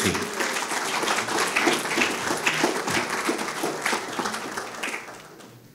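Audience applauding, a dense patter of many hands clapping that gradually dies away toward the end.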